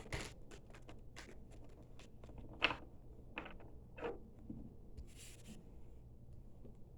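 Tarot cards being handled: a scatter of soft taps and clicks as cards are picked up and laid down, the loudest about two and a half seconds in, then a brief rustle a little after five seconds.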